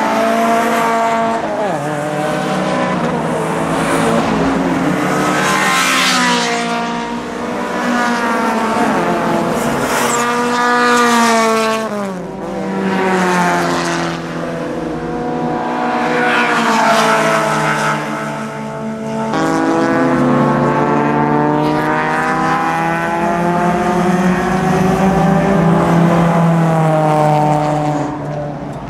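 Engines of a pack of race cars revving hard, several at once. The pitch climbs through each gear and drops at each shift, over and over.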